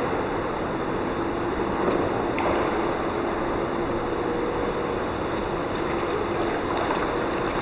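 Steady water noise in an indoor pool: water churning and lapping as a swimmer dolphin-kicks just under the surface, over a steady low hum.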